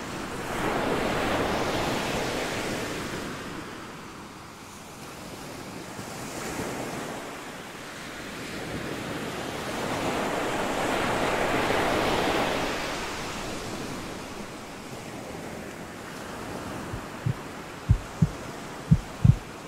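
Ocean surf washing onto a beach, rising and falling in two slow swells. Near the end, low thumps in pairs like a heartbeat begin under it.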